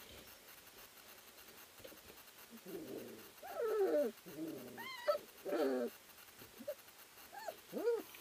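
Three-week-old Eurohound puppies whining and yelping as they wrestle and play. Starting about three seconds in there is a run of drawn-out whines that bend in pitch, then short yips that rise and fall near the end.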